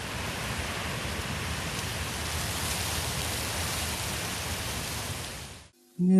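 Steady, even rushing noise with no distinct events, cutting off suddenly near the end, just before music starts.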